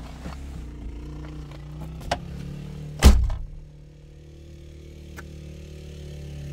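A car door opens with a latch click about two seconds in and slams shut about a second later, the loudest sound, heard from inside the cabin. A steady low engine hum from the idling car runs underneath.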